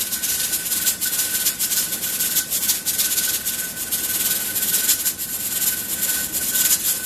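Pressure canner holding 10 pounds of pressure: the weighted jiggler regulator rattles on its vent while steam hisses out steadily, with a thin steady high tone underneath.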